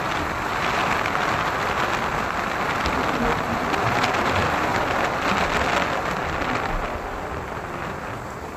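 Steady rushing wind and road noise from riding a Yamaha motorcycle at about 50 km/h, with wind buffeting the microphone; it eases off a little near the end.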